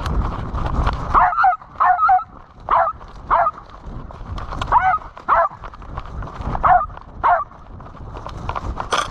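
A Jagdterrier (German hunting terrier) barking in short, high yelps, about ten of them and mostly in pairs, with gaps of a second or more between pairs. A low rumbling of movement runs under the first second.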